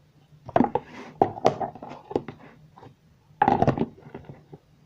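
Knocks and clatter of objects being handled and set down on a desk, in two bursts: one about half a second in, another about three and a half seconds in.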